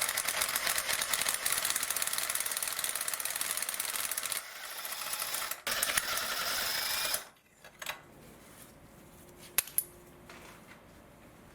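Ratchet wrench clicking rapidly while spark plugs are unscrewed from the cylinder head, in a long run of about four seconds and a shorter run a couple of seconds later, followed by a few faint single clicks.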